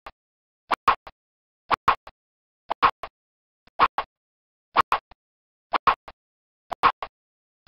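Sparse percussion beat of an intro jingle: a quick group of two or three short hits about once a second, with silence between.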